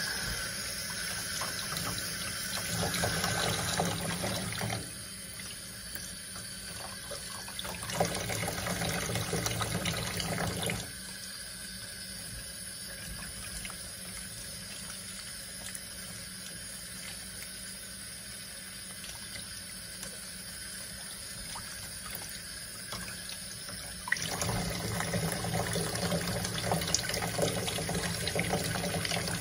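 Water running and splashing in a stainless steel kitchen sink while a puppy is washed, the flow coming and going: strong at first, quieter for long stretches in the middle, then strong again near the end.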